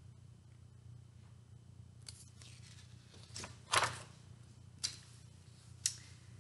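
Paper pages of a picture book rustling as a page is turned: a few short swishes, the loudest nearly four seconds in.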